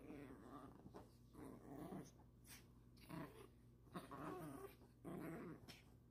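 Yorkshire terrier growling playfully in short, faint grumbles, about six in a row, each about half a second long.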